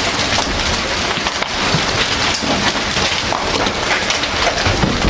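Heavy downpour of large hail mixed with rain, a dense, steady clatter of countless hailstones striking the ground, roofs and parked cars.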